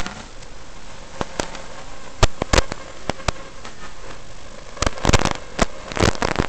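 Static hiss from an analog FPV video receiver's audio channel, broken by sharp crackles and pops as the radio signal breaks up. A few single pops come in the first half, then a denser run of crackles starts about five seconds in.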